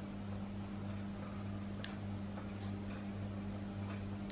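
A few faint, scattered plastic clicks as a GoPro action camera is turned over and handled in the hands, over a steady low hum.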